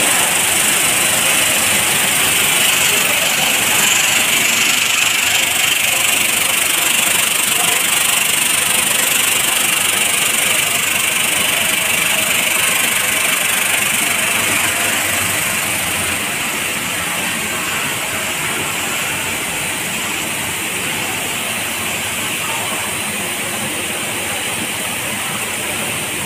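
Continuous snack-frying production line running: a steady, even machine noise with a strong hiss, easing slightly a little past halfway.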